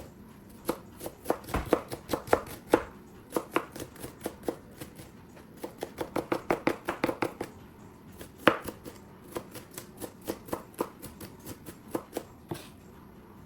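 Knife chopping on a cutting board in uneven strokes, with a quick run of rapid chops about six seconds in.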